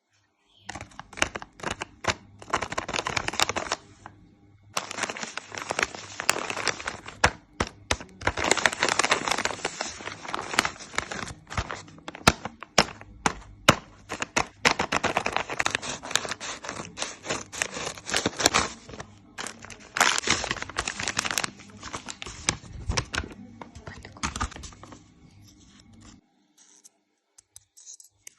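Blind-bag packets being handled, crinkled and torn open by hand: irregular crackling and crumpling with sharp clicks and taps, tapering off near the end.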